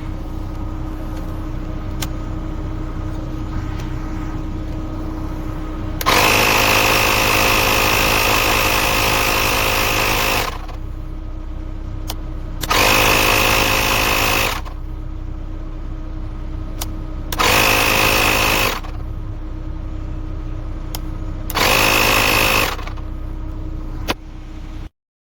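Portable 12 V electric tire-inflator compressor running in four bursts of one to four seconds, each with a high whine, over a steady mechanical hum; the sound cuts off abruptly near the end.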